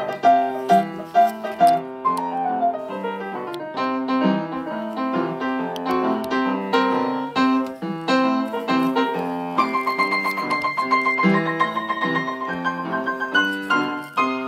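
Background music played on keyboard: quick struck notes over a repeating lower line, with a higher part coming in about ten seconds in.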